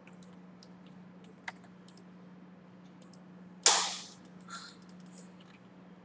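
Scattered computer keyboard and mouse clicks over a faint steady hum. About two-thirds of the way in, a single loud sharp noise that fades within about half a second.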